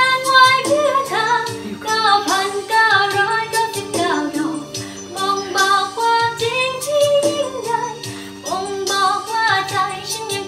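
A woman singing a melody along to a backing track with a steady beat.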